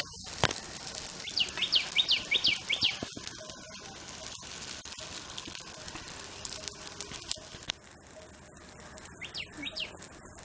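A small bird chirping: a quick run of short falling notes about a second and a half in, and a shorter run near the end. Near the start there is a sharp knock of the steel spatula on the iron griddle.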